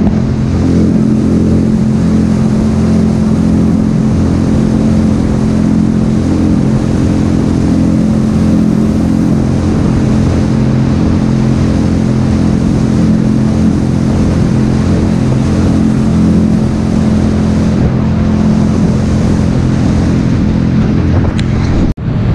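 Jet ski engine running at a steady cruising throttle, a constant hum that holds its pitch, heard from the rider's seat over the hiss of water and wind. It drops out for a moment near the end.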